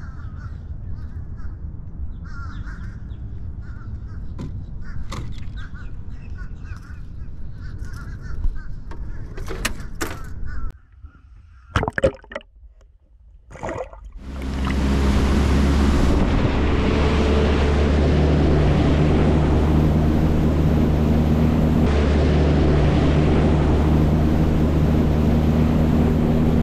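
Birds calling now and then over a low rumble of wind and water for about ten seconds. A few sharp clicks and a short lull follow, then a loud, steady drone with held low tones takes over about fourteen seconds in.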